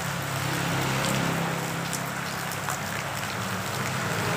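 Steady rain falling, with drops ticking on nearby surfaces, while a motorcycle engine hums past on the wet road.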